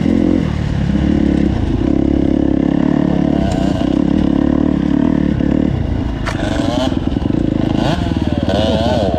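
KTM four-stroke motorcycle engine running loud under way, easing off briefly about half a second in. From about six seconds in, a wavering higher-pitched sound rides over the engine.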